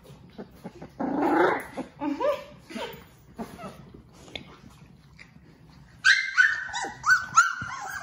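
Young Labrador retriever puppies making play noises: a short growl-like burst about a second in, then a quick run of high-pitched yips and whimpers in the last two seconds.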